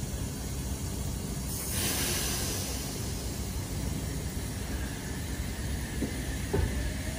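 Hiss of compressed air let out by the pneumatic system of a stationary double-deck electric train, starting about a second and a half in and fading slowly over several seconds, over a steady low rumble.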